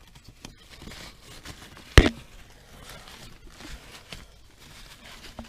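Paper or rags rustling and crinkling as spilled oil is wiped up. One sharp knock sounds about two seconds in.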